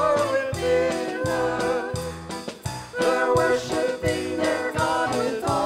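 Upbeat worship song with singing over a steady drum beat and a moving bass line.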